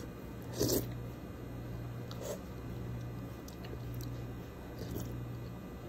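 Close-miked eating sounds from spoonfuls of soup: wet mouth noises and chewing in short separate bursts, the loudest about a second in, over a steady low hum.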